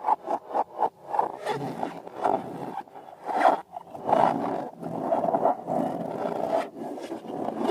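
Rubber balloons and slime being handled: a quick run of short scraping, squeaking strokes, about six a second, then a longer rasping, rubbing noise that swells and fades several times.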